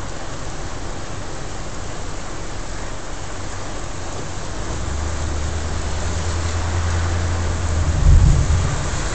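Strong storm wind and rain: a steady hiss, with wind buffeting the microphone as a low rumble that builds from about five seconds in and peaks in a loud gust near the end.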